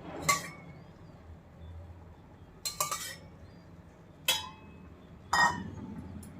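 Metal kitchen utensils clinking: a spoon striking metal cookware in a few sharp, ringing clinks, one a quick rattle of several hits about three seconds in.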